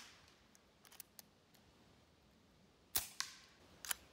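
An AirForce TalonP air gun shot through a DonnyFL Ronin suppressor gives no muzzle report, only the sharp click of the hammer about three seconds in. A lighter metallic 'tink' follows just after it, with a few small clicks before and after.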